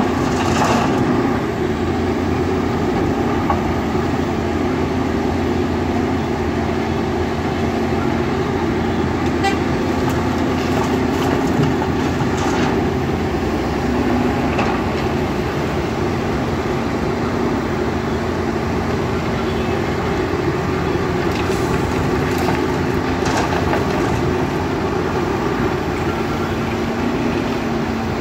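Volvo EC210B crawler excavator's diesel engine running steadily under working load, a constant drone with a steady tone in it. Stones clatter into the steel dump-truck bed near the start, and rocks rattle in the bucket a few more times as it digs.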